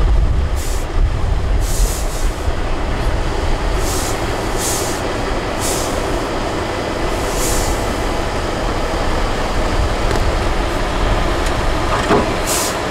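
An 8x8 off-road trial truck's diesel engine rumbling steadily as the truck crawls over rough, rutted ground. Short, sharp hisses of air cut in every second or so in the first half and once near the end.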